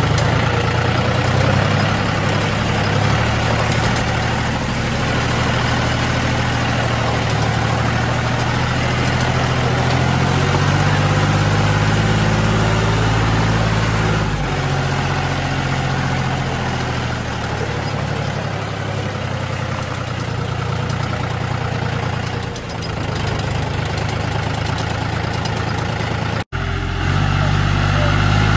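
John Deere tractor's diesel engine running steadily as the tractor drives through a muddy field track, its pitch rising and dropping a little with the load. The sound breaks off for an instant near the end, then the engine carries on.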